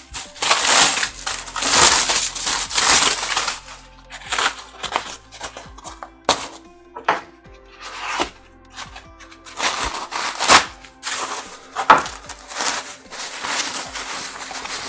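Aluminium foil and brown packing paper being crumpled and pulled apart by hand, in irregular crinkling bursts with short pauses between them, over background music.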